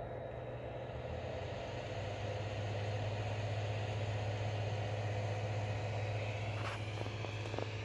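New TH3D 40mm dual-bearing hotend fan on a 3D printer running steadily, a whir of moving air over a low hum. It is nice and quiet, and grows a little louder about two seconds in. There are a few light clicks near the end.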